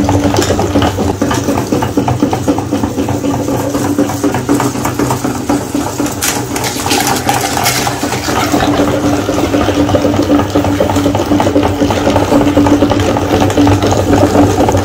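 Metal meat grinder turning, wet mush squelching as it is forced through the holes of the cutting plate, over a steady hum.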